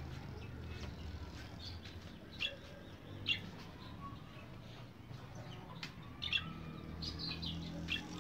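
Birds chirping in short, separate calls, the loudest a few seconds apart, over a low steady hum.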